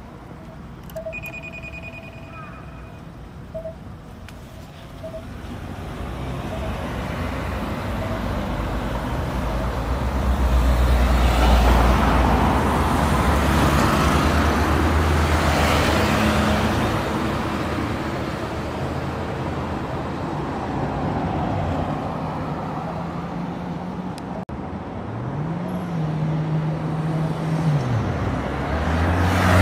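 Street traffic passing: motor vehicles go by, with a heavy low engine rumble swelling and fading in the middle. Near the end a vehicle pulls away, its engine pitch rising, dropping at a gear change and rising again.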